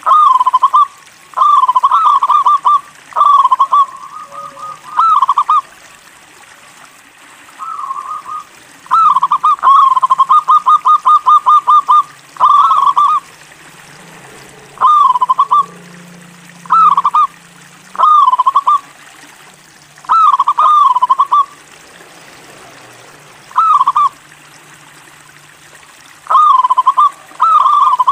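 A local zebra dove (perkutut lokal) sings its cooing song in repeated phrases of rolling, stuttered coos, with pauses of a second or two between them. About a third of the way in comes one long, fast run of notes.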